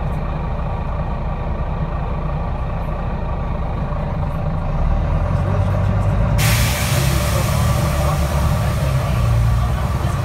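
Interior of a Wright Eclipse Gemini 2 double-decker bus: the diesel engine's low hum grows louder about four and a half seconds in as the bus pulls away from traffic lights. A steady hiss starts abruptly about six seconds in.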